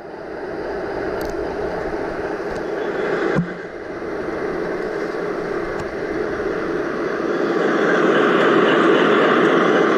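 Model railway train running along the track: a steady rumbling whirr that fades in, is broken by a short knock about three and a half seconds in, and grows louder near the end as it comes closer.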